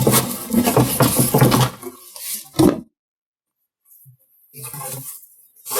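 Cardboard box and foam packing pieces being handled: a couple of seconds of rustling and clattering, then a single sharper knock.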